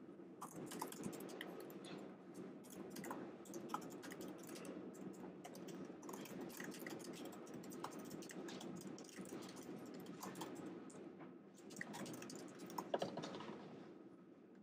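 Typing on a computer keyboard: a run of quick, faint key clicks as a sentence is typed.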